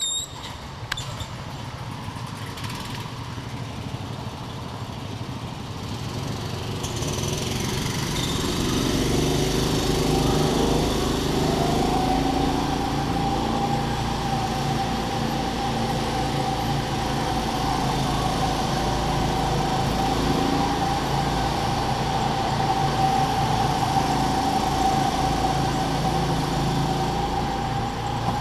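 Go-kart driven at speed around a track. Its motor note climbs as it accelerates over the first several seconds, then holds a steady running sound with a constant whine.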